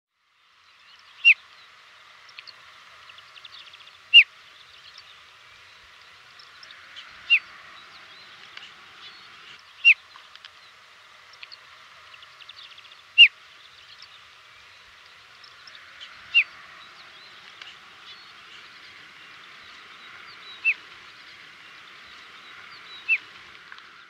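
Desert lark giving single short, sharp chirping calls, slowly, about every three seconds, eight in all, over a steady background hiss.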